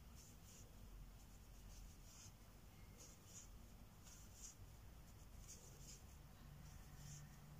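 Near silence, with faint scratchy rustles about once or twice a second as a Tunisian crochet hook is pushed through the yarn and loops are drawn onto it.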